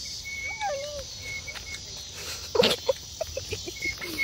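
Steady high-pitched insect chorus with short chirps and calls over it. About two and a half seconds in comes a louder short sound, followed by a run of quick pulses.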